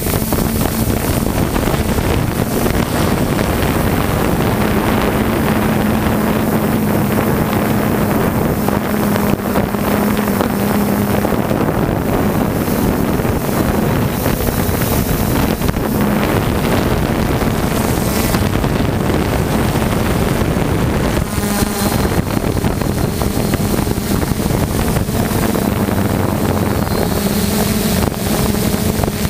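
A drone's motors and propellers humming steadily, picked up by the camera it carries, with wind rushing over the microphone. The hum wavers slightly in pitch and strength as it flies.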